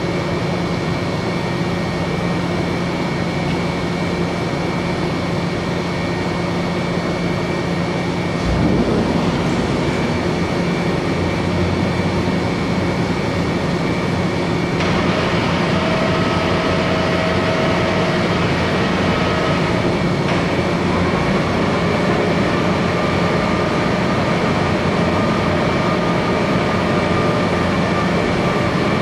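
Cincinnati Hypro vertical boring mill running under power: a steady machine hum with several whining tones over it. About eight and a half seconds in it gets louder with a low thump, and new whining tones come in around fifteen and twenty seconds.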